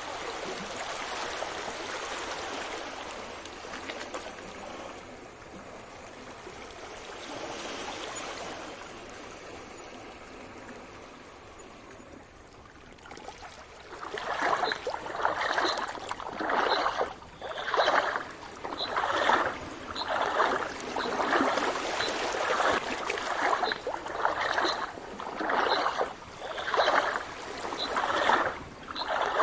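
Sea waves washing in and out in slow swells. About halfway through, the sound changes abruptly to quick, regular sloshing of water, roughly one splash a second.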